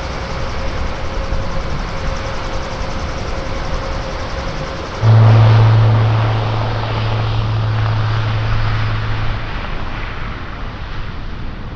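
Airbus A400M's four turboprop engines and eight-bladed propellers running as the transport taxies and rolls for take-off. About five seconds in the sound jumps louder with a strong low drone that fades away over the next few seconds.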